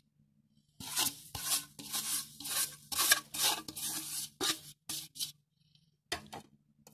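Granulated sugar sliding out of a glass bowl into a plastic mixing bowl as the bowl is shaken, a run of short hissing rushes about two a second, with two brief ones near the end.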